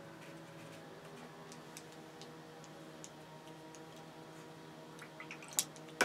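Faint low steady hum with soft scattered ticks, then a few sharp clicks near the end as a paintbrush knocks against the metal watercolour paint box and palette while picking up paint.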